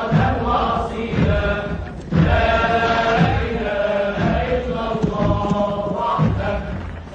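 Chanted vocal anthem: voices sing held notes together over a deep thump about once a second.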